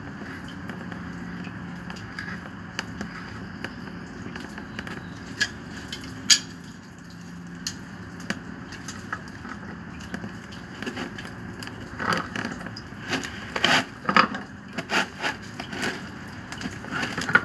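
Metal hand tools clicking and knocking against a threaded metal fitting as an adjustable wrench is fitted and turned to tighten it in a peripheral pump's outlet. Scattered clicks at first, one sharp one about six seconds in, then a dense run of clicks and knocks near the end, over steady low background noise.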